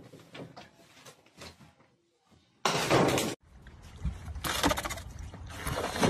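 Water splashing loudly as a person plunges into a lake off a dock, near the end. Before that come a few faint knocks, then a sudden loud rush of noise.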